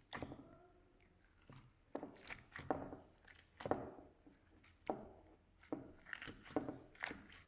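Slime being squeezed and poked by hand, giving a run of wet clicks and pops, about one or two a second, with a brief wavering squeak just after the start.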